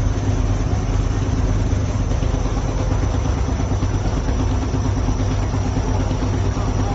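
Steady low engine drone with an even hum and no change in speed, typical of a boat's diesel engine running under the filming position.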